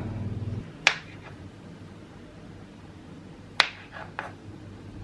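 Kitchen knife slicing through soft blocks of wheat gluten and tapping a plastic cutting board: a few sharp separate clicks, about a second in and a louder one with a weaker follow-up between three and four and a half seconds in.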